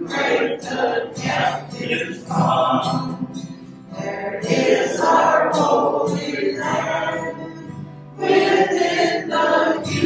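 A small choir of men's and women's voices singing a hymn together in long phrases, with short breaths between phrases about four and eight seconds in.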